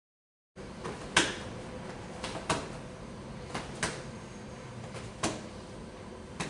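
Sharp slaps of a boxing glove meeting an open hand as jabs and crosses are parried, about eight in all, some in quick pairs, over a low steady room hum.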